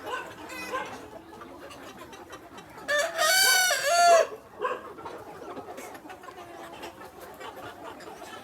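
A rooster crows once, a single call of about a second and a half starting about three seconds in, over the soft clucking of hens.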